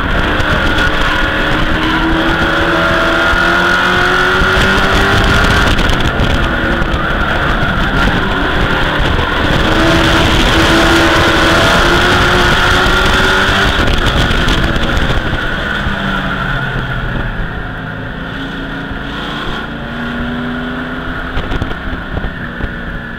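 Race truck's engine heard from inside the cockpit at speed, its pitch rising and falling over steady rushing noise. About fifteen seconds in it eases off and runs quieter at lower revs.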